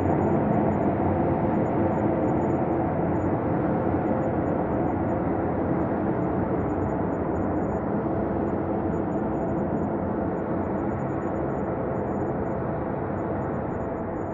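Ambient space-drone soundscape: a steady, dense synthesized drone with faint sustained tones in it, easing slightly in loudness toward the end.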